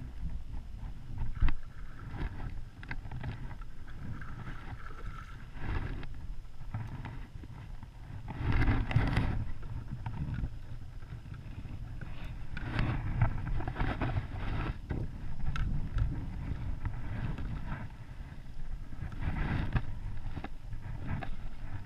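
Wind buffeting the microphone and water slapping against a plastic kayak hull, with a sharp knock about a second and a half in and several louder surges of splashing, the loudest about nine seconds in.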